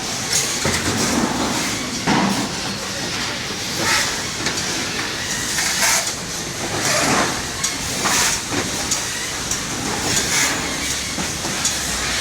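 Factory assembly-line noise: a steady machinery din with repeated short hisses and clicking, clattering work sounds every second or two.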